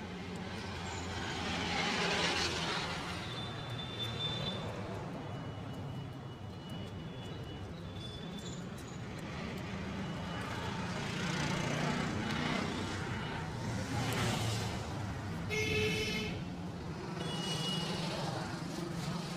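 Street traffic with engines running and vehicles passing, the noise swelling and fading. A vehicle horn honks briefly about sixteen seconds in, and a few faint high tones sound earlier.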